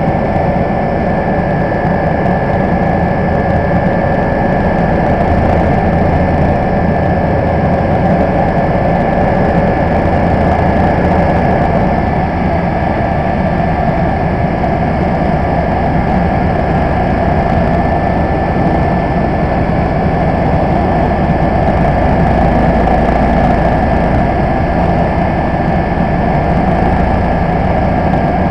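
Cabin noise of a Messerschmitt-Bölkow-Blohm BO 105 twin-turbine helicopter in flight: steady engine and rotor-transmission noise with a low rumble and a thin, steady high whine.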